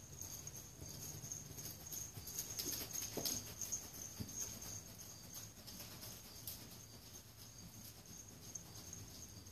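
Hoofbeats of a young mustang on soft sandy arena footing as it is ridden past, loudest and most frequent a couple of seconds in, then fading as it moves away. A steady high chirring runs underneath.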